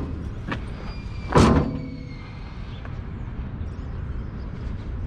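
A metal lid slammed shut once, about a second and a half in, with a short metallic ring dying away, after a lighter click at the start; a steady low rumble runs underneath.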